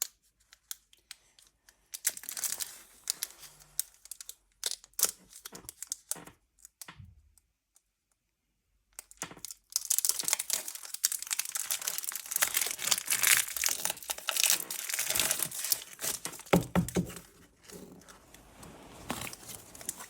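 Foil wrapper of a Pokémon card booster pack being crinkled and torn open, in irregular crackly bursts, then a stretch of dense continuous crinkling and tearing after a short silence about halfway through.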